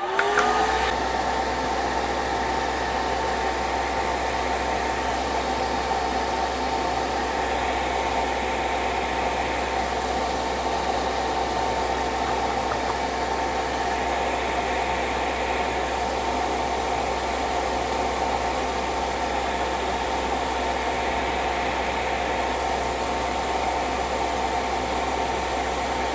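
Fan of a 3D-printed DIY fume extractor drawing air through a single filter: it spins up within the first half second, then runs at a steady speed with a constant hum and an even rush of air.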